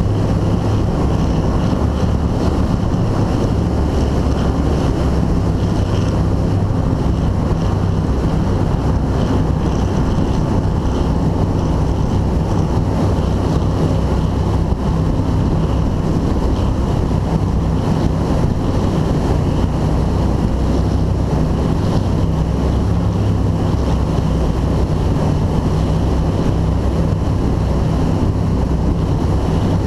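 2002 Formula 292 Fastech powerboat running at speed: a steady low engine drone under heavy wind buffeting the microphone and water rushing past the hull.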